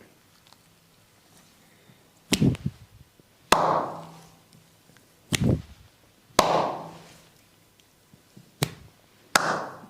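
Percussive massage: hands striking and slapping a person's body in about six sharp blows, irregularly spaced roughly a second apart. Some blows land with a deep, dull thud and others with a sharper smack and a short ringing tail.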